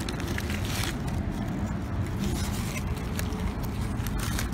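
Foil sandwich wrapper being opened and handled, crinkling and crackling with scattered scrapes, over a steady low rumble.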